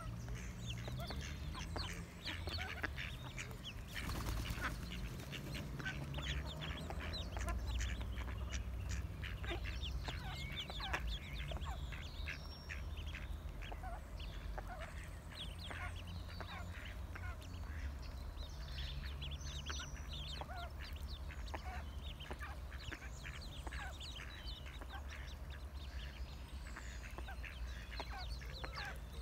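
A brood of mallard ducklings peeping constantly, many short high calls overlapping, over a steady low rumble, with a brief hiss about four seconds in.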